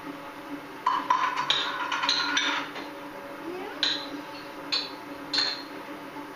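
Dishes and utensils clinking and knocking at a kitchen counter: a quick cluster of clinks about a second in, then a few single clinks.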